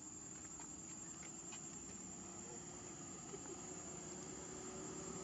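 Steady high-pitched insect chorus, a cricket-like trilling that holds one pitch, over a soft background hiss with a few faint clicks.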